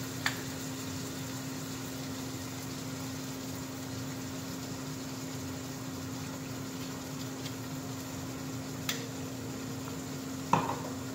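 Carrots frying in oil in a steel pan, a steady low sizzle over a faint hum. A click comes just after the start as the oil bottle is opened, and a louder knock near the end as the bottle is set down.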